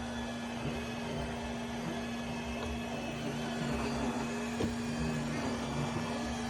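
Robot vacuum running: a steady motor hum with one constant tone over an even whir.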